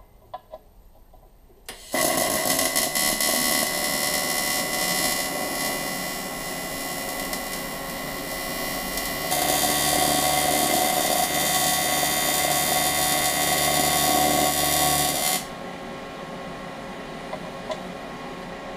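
AC TIG welding arc on cast aluminium, a steady buzzing hiss that strikes about two seconds in. It grows louder and deeper around the middle, then cuts off suddenly near the end, leaving a quieter steady hum.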